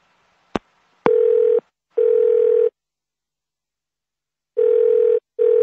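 Telephone ringing tone heard on the caller's line: a steady low tone in a double-ring pattern, two pairs of rings about three and a half seconds apart, after a single click about half a second in. The called number is ringing and has not yet been answered.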